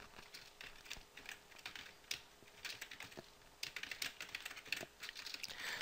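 Computer keyboard keys clicking as text is typed: faint, irregular keystrokes, coming in quicker runs in the second half.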